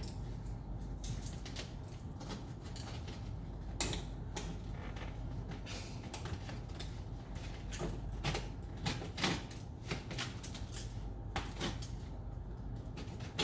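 Cardboard box being cut and forced open with a cutter: irregular scrapes, creaks and knocks of the cardboard, over a low steady hum.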